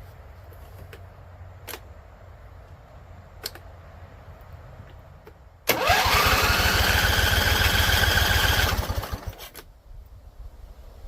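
Husqvarna Z254 riding mower engine being cranked by its electric starter for about three seconds, with a quick pulsing and a whine rising as the starter spins up, then stopping without running on. It is a no-start that the owner takes for a flooded engine.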